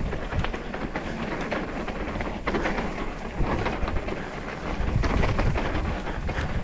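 Trek Slash mountain bike riding a rough dirt trail, heard from an on-bike or body camera: wind rumbling on the microphone, tyres on dirt, and many short knocks and rattles from the bike over bumps.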